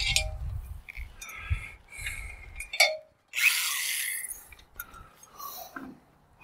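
Cordless drill with an old, dull bit working at thin rusted tin roofing, with scraping and metallic clinks and a rough grinding stretch about three seconds in.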